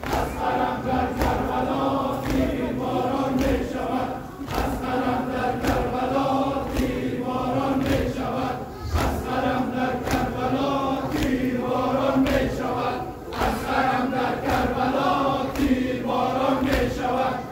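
A large crowd of men chanting a Muharram lament (nauha) in unison. Sharp strikes about once a second keep the beat, the crowd's rhythmic chest-beating (matam).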